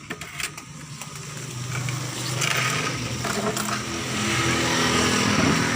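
A motor vehicle's engine, growing louder over about two seconds as it approaches and then running at a steady level. A few light clicks come in the first second.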